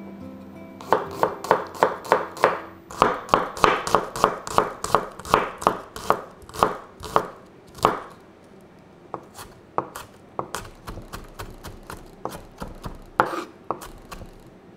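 Kitchen knife mincing garlic on a wooden cutting board: quick, even chopping strikes, about three a second, turning after about eight seconds into sparser, uneven taps as the knife works through the pile.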